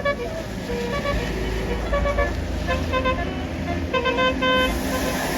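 Basuri telolet bus horn playing a tune of short, stepping notes in three groups: at the start, about three seconds in, and about four seconds in. A low traffic rumble runs underneath.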